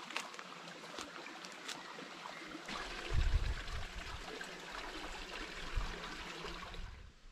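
Small shallow creek trickling over rocks, with a low rumble about three seconds in.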